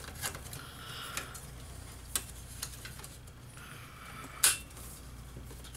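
Snap-in AC outlet scraping and clicking against the sheet-metal back panel as it is pushed into its cut-out, with one sharp click about four and a half seconds in. The hole is still a little too tight for the outlet to seat.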